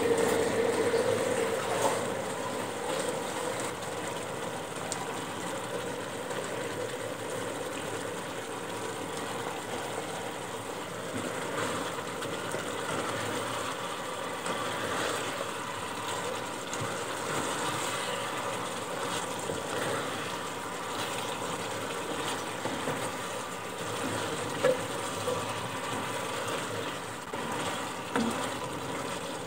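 Chicken pieces bubbling in a spiced gravy in a pan as the gravy boils down, a steady bubbling hiss that is a little louder in the first couple of seconds. A single brief knock a few seconds before the end.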